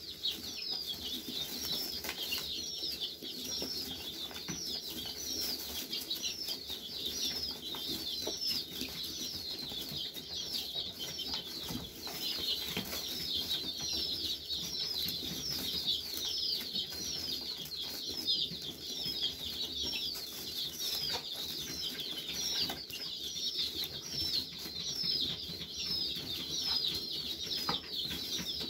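A brood of young chicks peeping continuously, many short downward-sliding peeps overlapping several times a second.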